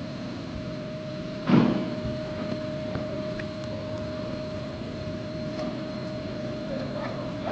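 A steady mechanical hum holding one tone, with a single loud thud about a second and a half in and a few faint clicks.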